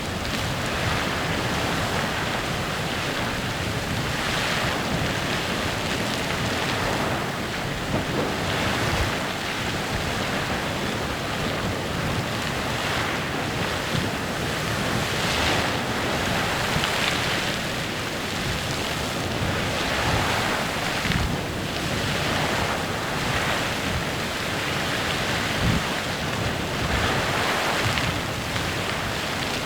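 Clepsydra Geyser in continuous eruption: a steady hiss and splash of water and steam that swells and eases unevenly every second or two.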